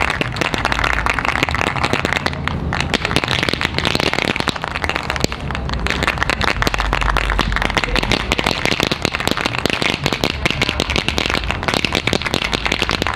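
High-temperature aerosol spray paint can hissing as it is sprayed onto a motorcycle exhaust, with a dense crackle throughout.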